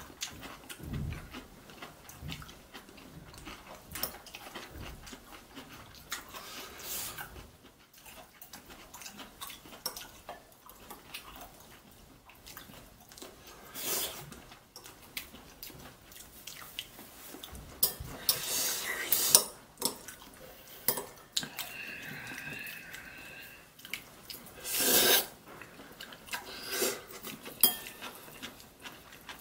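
Metal chopsticks clicking and scraping against ceramic bowls as noodles are stirred and lifted, in irregular taps, with a few louder, longer noises about two-thirds of the way in and again later.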